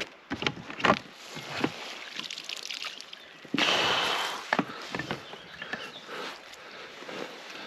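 Knocks and clatter of handling gear in a small boat while playing a fish, with a loud rushing, splashy noise lasting about a second around the middle.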